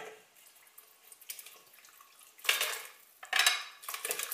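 Metal slotted spoon scraping cooked prawns and squid rings off a china plate into a stainless steel pot. A light clink at the start, then about three scraping strokes in the second half.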